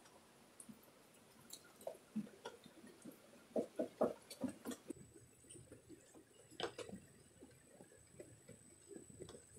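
Faint, irregular drips and taps of rain on a sailboat's deck and windows, heard from inside the cabin, with a thin, steady high whine from about halfway through.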